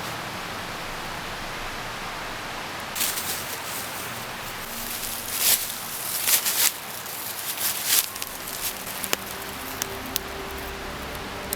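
Steady rushing noise of a mountain river, with a cluster of loud, irregular rustling noises from about three to eight seconds in and a few sharp clicks after.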